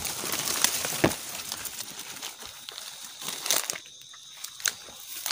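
Dry grass and leaves rustling and crackling, with sharp clicks, as a shot white-breasted waterhen is grabbed and pulled up by hand. Its wings flap as it is lifted, and a steady high insect trill comes in near the end.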